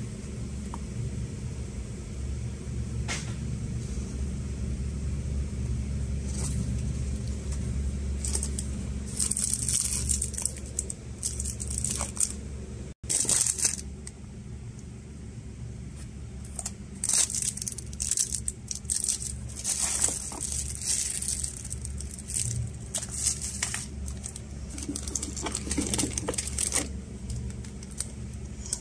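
Cardboard and plastic packaging being handled, rustling and crinkling in short irregular bursts as a router is unboxed, over a steady low hum.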